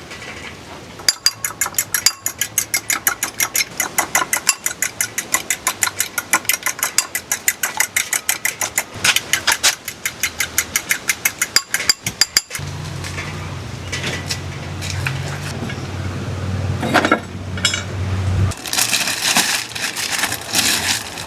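Rapid, even sharp knocks, about four or five a second, for some eleven seconds, then a low steady hum.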